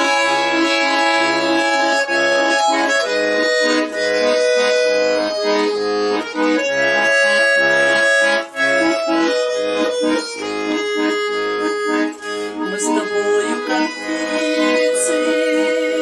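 Garmon (Russian button accordion) playing the instrumental introduction to a song: a melody over held chords, with short rhythmic bass notes underneath.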